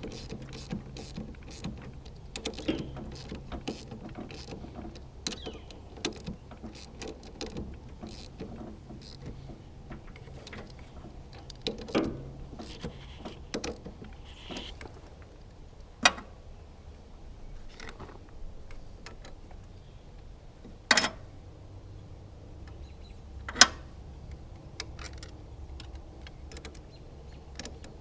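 Scattered clicks and metallic clinks of hand tools working on metal, with three sharp knocks standing out in the second half.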